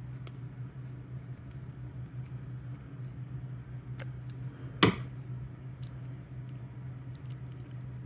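Faint small clicks and scrapes of a screwdriver turning and tightening a terminal screw on a plastic plug, with one sharper click about five seconds in, over a steady low hum.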